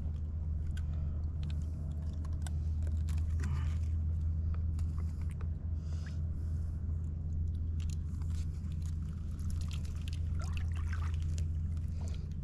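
Small splashes and trickles of water with scattered light clicks and scrapes of handling, over a steady low rumble.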